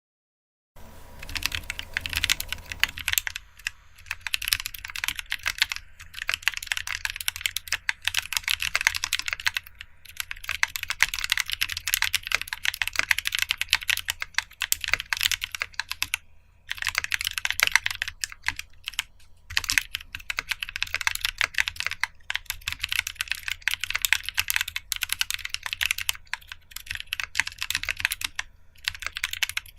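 Fast typing on a GK64 mechanical keyboard with lubed Halo True tactile switches, an aluminium plate and doubleshot ABS keycaps. It is a dense stream of keystrokes in bursts with brief pauses, starting about a second in.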